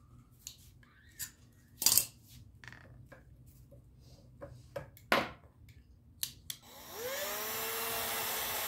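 Scattered sharp clicks and knocks of pliers working a bolt and nut in a plastic fitting on an aluminium spar. About seven seconds in a cordless drill starts up, its whine rising, then runs steadily, drilling into the Delrin plastic block.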